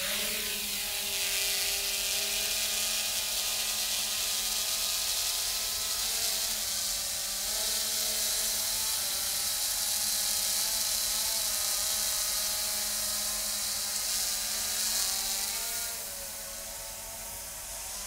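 Camera quadcopter's electric motors and propellers running in flight, a steady buzzing whine of several tones that waver up and down in pitch as it hovers and manoeuvres. It gets a little quieter near the end as the drone moves away.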